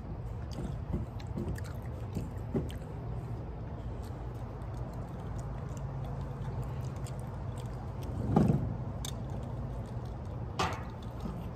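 A steady low background rumble, with faint clicks and chewing from eating. A short louder swell comes about eight seconds in.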